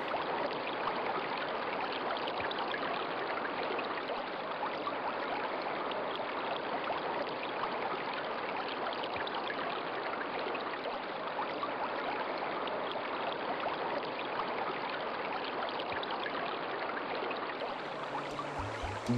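A fast-flowing river rushing steadily, an even, unbroken water noise.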